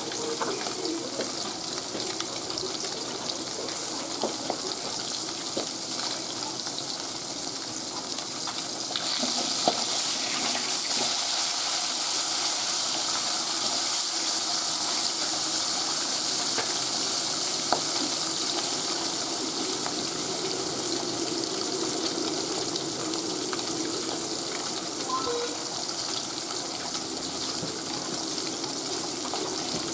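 Rohu fish pieces sizzling as they shallow-fry in hot oil in a metal kadai: a steady hiss that grows louder about nine seconds in as the pieces are turned. A few light taps of the metal spatula against the pan.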